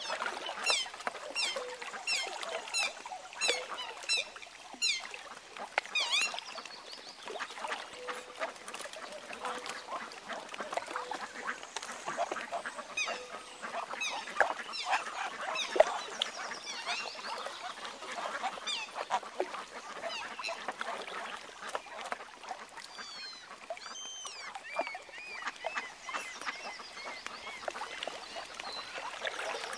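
Waterfowl calling on the water: a flock of mute swans with their cygnets, among mallards. A quick run of short, high, falling calls fills the first six seconds, then calls come more scattered for the rest, with a few chirpy rising-and-falling notes near the end.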